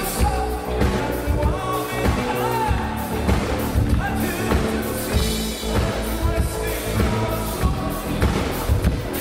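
Synth-pop band playing live: a male lead vocal sings over synthesizers and a steady drum beat through the concert sound system.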